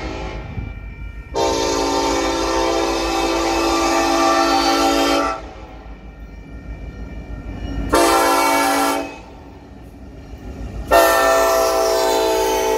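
Union Pacific freight locomotive's air horn blowing the grade-crossing signal, a chord of several notes: a long blast, a short one, then another long blast starting near the end. Under it runs the low rumble of the approaching train.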